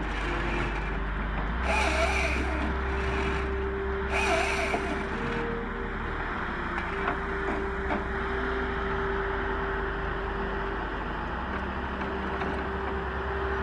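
Heavy forestry machine running: a steady diesel drone with a whine that comes and goes. Two short, brighter surges of noise come about two and four seconds in.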